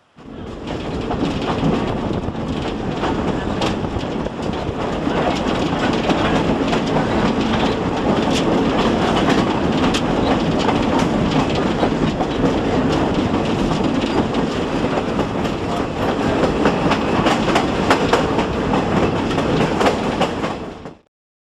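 Excursion train rolling along the track, a steady rumble with the wheels clicking irregularly over the rail joints; it cuts off suddenly near the end.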